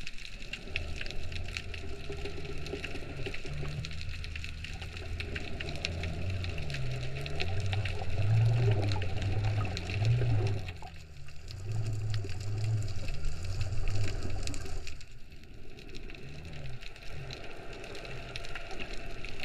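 Underwater sound picked up by a camera held below the surface while snorkeling: a wavering low drone under a steady fine crackle, dipping briefly twice in the second half.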